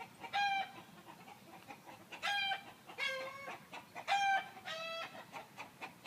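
Chickens calling: five short, pitched clucking calls at uneven intervals.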